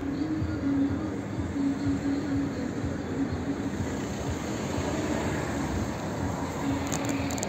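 Steady low noise of a passing vehicle, with a humming tone that comes and goes.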